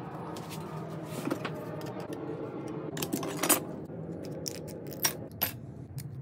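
A pencil scraping over a thin aluminium sheet. Then, from about halfway, tin snips cut the sheet with several sharp metallic snips and clinks.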